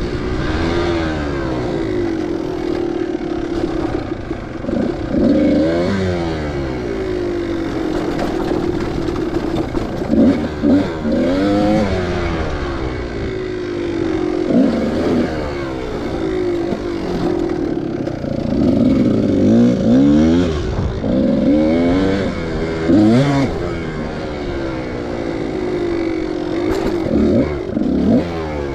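Dirt bike engine being ridden on a trail, revving up and falling back over and over, its pitch climbing and dropping every few seconds.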